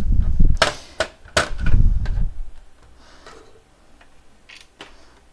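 Plastic snapping, clicking and thumping as a laser printer's top cover panel is pried loose from its snap-fit tabs: a cluster of sharp snaps and knocks in the first two seconds, then two lighter clicks near the end.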